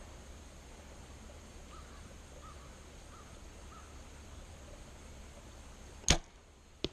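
A compound bow, set at about 70 pounds, fires once: a single sharp snap of the release about six seconds in, followed under a second later by a fainter smack of the arrow striking a target about 40 yards off.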